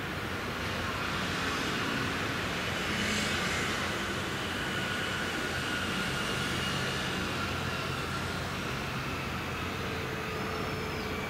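Steady, distant engine drone with a low hum and a constant hiss, unchanging throughout, with a brief faint high chirp near the end.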